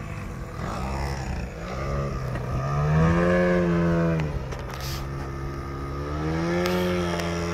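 Radio-controlled aerobatic model airplane flying overhead, its motor and propeller buzzing. The pitch swells and falls several times, loudest about three seconds in.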